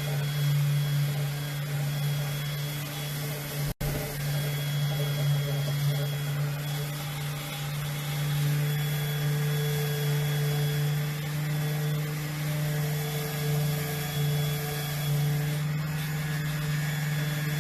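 Electric sander running steadily against the wood of a bench, a constant motor hum; it cuts out for an instant about four seconds in.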